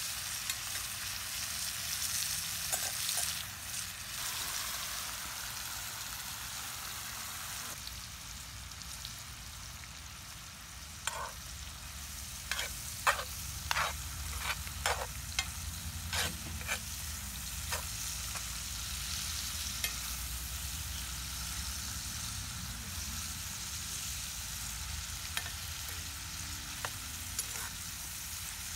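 Green beans and mushrooms sizzling in a cast-iron skillet over a wood fire as they are stirred with a metal slotted spoon. A steady hiss, with a run of sharp clicks about halfway through.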